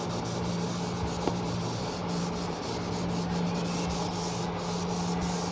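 A cloth duster wiping marker ink off a whiteboard: continuous rubbing and scrubbing strokes, over a steady low hum.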